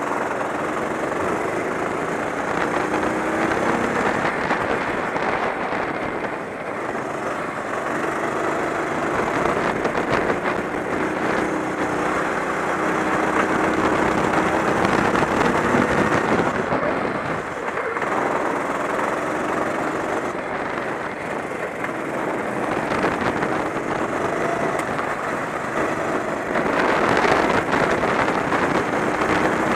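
Kart engine running at racing speed, its pitch rising and falling repeatedly as the kart speeds up and slows through the corners, over a steady noisy rush.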